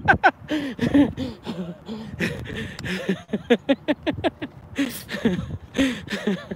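A man laughing heartily in a run of short, breathy bursts.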